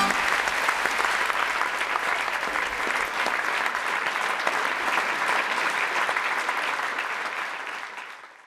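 Audience applauding after the music stops, a dense steady clapping that fades out near the end.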